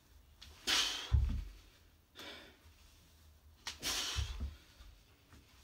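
A man's sharp exhales, each followed about half a second later by the low thump of his feet landing on an exercise mat, twice, about a second in and about four seconds in, as he does jumping reverse lunges.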